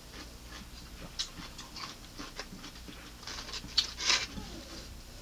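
Close-up eating sounds of crispy fried chicken wings: soft chewing clicks and crunches, then a louder crackle of the fried breading about four seconds in as a wing is pulled apart by hand.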